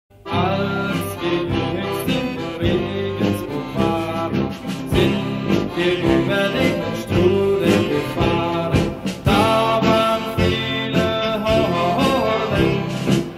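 Background music with a steady beat, starting abruptly out of silence right at the start.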